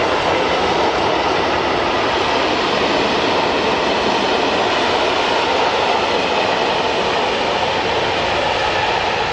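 Freight train of open-top Eaos goods wagons rolling past, a loud, steady noise of wheels running on the rails.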